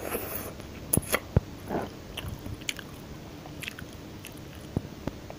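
Close-miked eating: chewing with wet mouth clicks and a few soft crunches. These are bunched in the first two seconds, then thin out to sparse small clicks.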